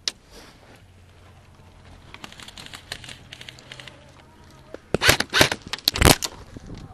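Sharp clicks and crackling rustles. A dense cluster of louder clicks and knocks comes about five to six seconds in.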